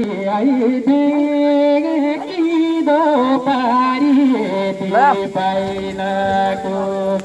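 A man singing into a microphone, amplified: long-held notes that bend and slide, over a steady low drone. About five seconds in, the voice makes a quick swoop up and back down.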